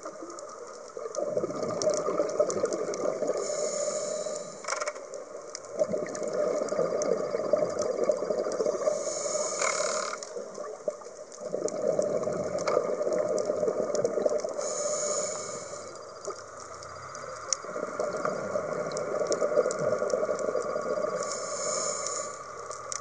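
Scuba diver breathing through a regulator underwater: four long rushes of exhaled bubbles, one about every five to six seconds, each with a short high hiss near its end.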